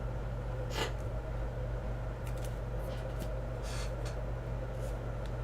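Steady low electrical hum, with a few soft, brief rustles of trading cards being handled.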